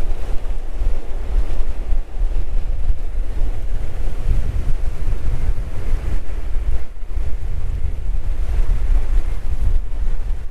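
Wind buffeting the microphone with a loud, rough rumble over the steady wash of surf breaking on the shore.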